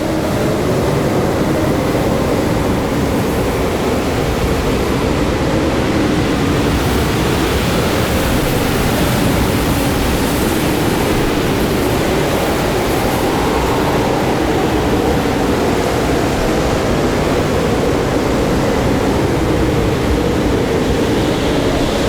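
Blizzard wind howling: a steady, dense rush with moaning tones that waver slowly up and down in pitch.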